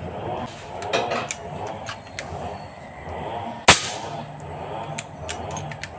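A single airgun shot a little under four seconds in, sharp and sudden, with a few fainter clicks before and after it.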